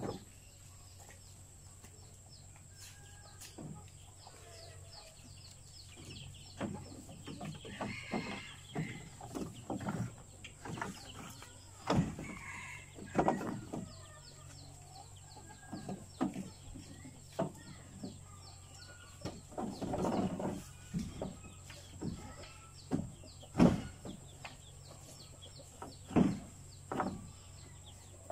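Chickens clucking now and then, among scattered sharp knocks and rustles from leafy fodder being handled in a wooden feed trough.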